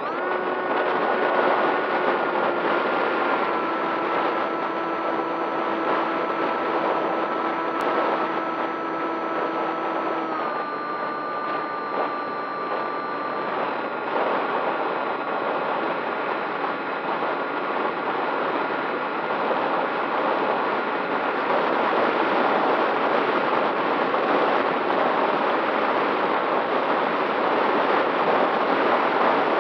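Radio-controlled model plane's motor heard from an onboard camera: a steady multi-tone whine that steps down in pitch a few times as the throttle is eased during the climb. Heavy wind rush on the microphone runs under it and takes over in the second half as the whine fades.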